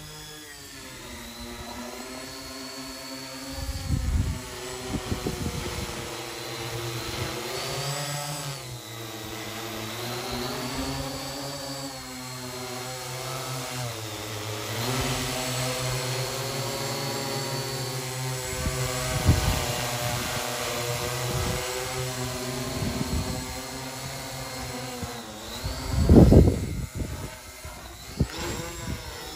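Six-rotor drone hovering, its propellers giving a steady buzzing hum whose pitch rises and falls as the motors adjust thrust. Low rumbles of wind on the microphone come and go, the strongest near the end.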